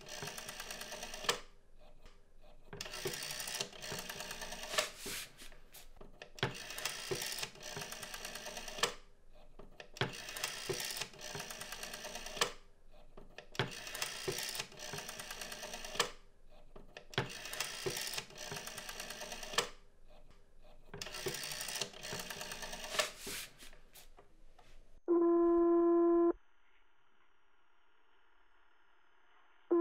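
A telephone being dialled, seven digits turned on a rotary dial, each a whirring run of clicks about every three and a half seconds. Then the line rings: a steady ringing tone about a second long, coming again near the end.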